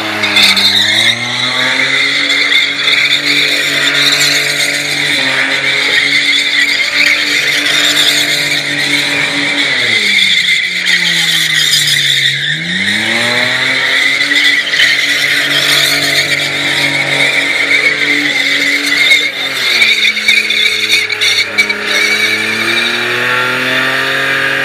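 A Holden VR Commodore's V6 held at high revs through a burnout, the rear tyres squealing the whole time. The revs drop and climb back three times: at the start, about halfway, and near the end.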